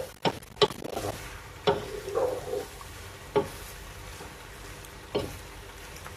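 Wooden spoon stirring penne in sauce in a nonstick pot, with about five sharp knocks of the spoon against the pot at uneven intervals and softer scraping between them, over a steady low sizzle.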